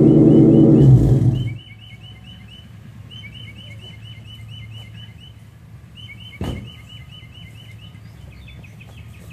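Car exhaust with headers, no catalytic converters and Flowmaster single-chamber 10 Series mufflers running loud, then cutting off about a second and a half in. A bird then repeats a short chirp several times a second, with a single sharp knock about midway.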